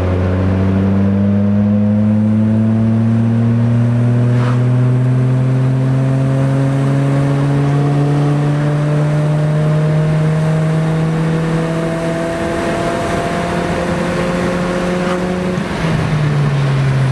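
Honda car's engine pulling hard under full acceleration, heard inside the cabin, its pitch rising steadily as the car climbs from about 30 mph toward 70 mph. Near the end the pitch drops as the automatic transmission shifts up.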